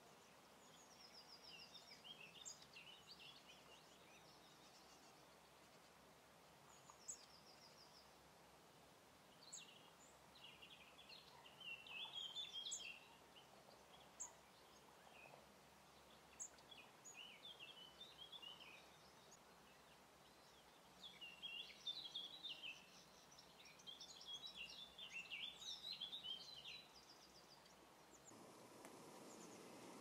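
European goldfinch song: faint phrases of quick twittering and tinkling notes, coming in several bursts with short pauses between them. A faint steady background hiss rises near the end.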